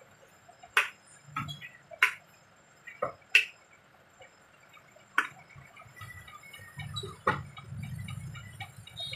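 A small square fondant cutter tapping and pressing down through rolled fondant onto a stone countertop: about six sharp, separate clicks a second or so apart. Near the end, a low rubbing noise as the fondant sheet is handled and peeled off the counter.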